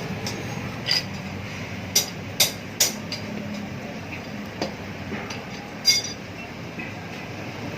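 About six sharp metallic clinks of hand tools against motorcycle exhaust parts, spaced irregularly, the loudest about six seconds in, over a steady low hum.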